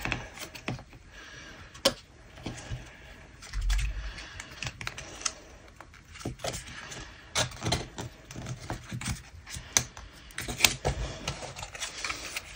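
Irregular clicks, taps and light rustling of card and paper packaging being handled, with a dull bump on the table about four seconds in.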